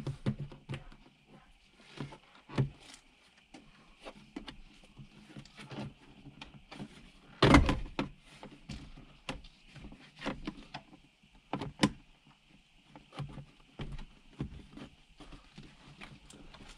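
Irregular clicks, knocks and rattles of plastic interior trim being handled and pulled off, a vehicle kick panel coming away from its clips, with the loudest clatter about seven and a half seconds in.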